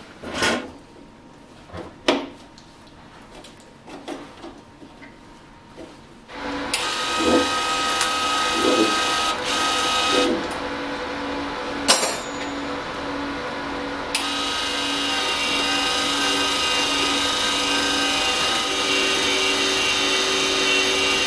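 Wire-feed welder's drive motor running steadily, feeding flux-core wire through the gun, with a regular pulsing under a steady whir. It starts about six seconds in, after a few clicks and knocks of cable handling.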